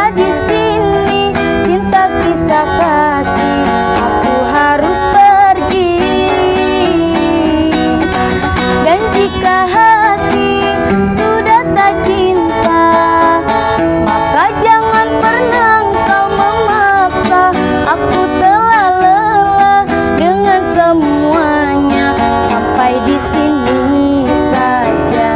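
Guitar-led music accompanying a busker's song, with a wavering melody line carried above the chords.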